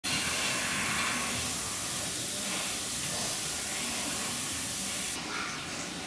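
Steady hissing background noise inside an indoor pig shed; the hiss thins about five seconds in.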